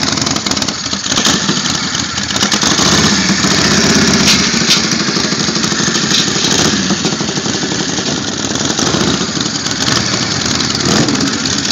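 Harley-Davidson Shovelhead V-twin motorcycle engine running at idle, its revs rising and falling briefly about four seconds in and again near the end.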